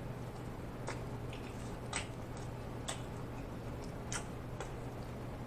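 Faint wet clicks and squishes of chewing a mouthful of Italian beef sandwich, a few scattered smacks about a second apart, over a low steady hum.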